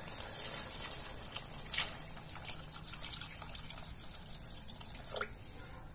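Water poured in a steady stream into a pan of tomato and vegetable sauce, gushing and splashing into the liquid, easing off near the end.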